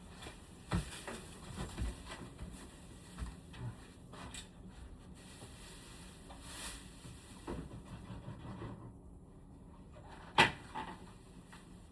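Scattered light knocks and clicks of things being handled, with one sharper knock about ten seconds in.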